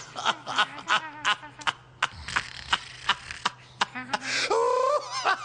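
Cartoon voices laughing in a run of short quick bursts, with one longer wavering laugh about four seconds in.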